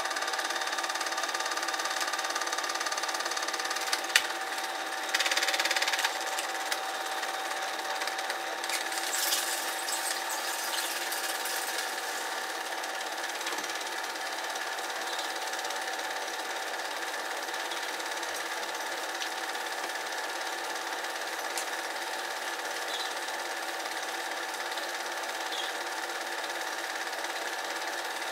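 Cine film projector running, its motor and mechanism whirring steadily with a constant hum, with a brief louder noise about five seconds in.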